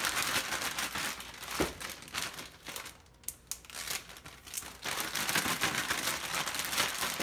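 Plastic gallon zip-top bags crinkling as raw chicken wings are shaken in a dry seasoning rub, with a quieter lull in the middle.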